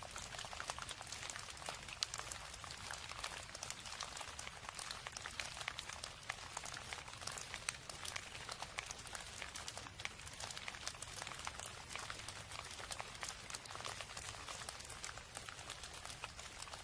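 Steady rain falling, a dense, even patter of countless small drops.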